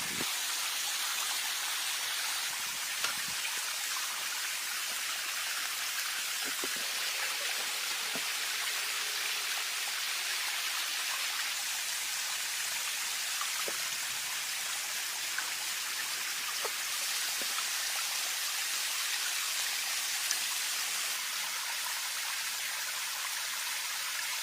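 Steady rain falling, an even hiss with a few separate drops ticking out from it now and then.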